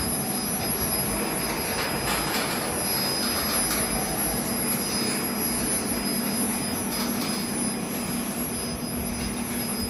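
Electromagnetic induction rotary kiln running: a steady machine noise with a constant hum and a thin high whine.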